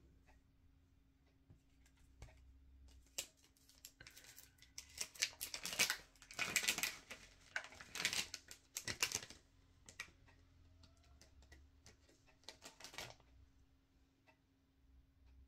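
Crinkling and clicking of a thin clear plastic tray as a gel under-eye patch is pried out of it. The rustles come in clusters, loudest through the middle, with a second short flurry near the end.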